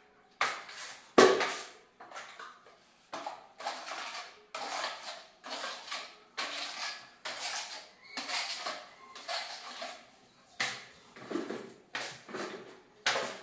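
Putty blade scraping wall putty across a wall in repeated strokes, about three every two seconds, while a second coat is spread and smoothed; the sharpest scrape comes about a second in.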